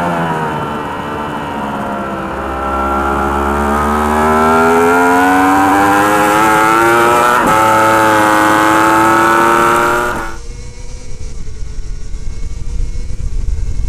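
Yamaha R1 superbike's inline-four engine at racing speed, heard from onboard. Its pitch falls as the bike slows, then climbs under hard acceleration, with a brief break for an upshift about seven and a half seconds in. About ten seconds in the sound cuts to another superbike's onboard, where wind rush and a lower engine rumble take over.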